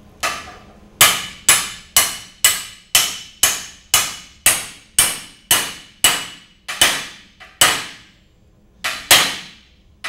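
Hammer blows, about two a second, each with a short metallic ring, with a brief pause near the end: frozen bronze bushings being driven into a heated steel tube without a press.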